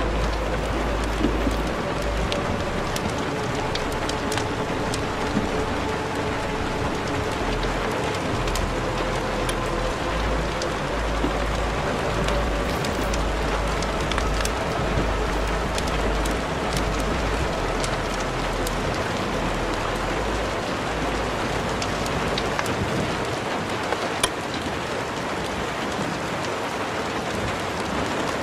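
Steady rain-like hiss with scattered crackles, over a faint slow song.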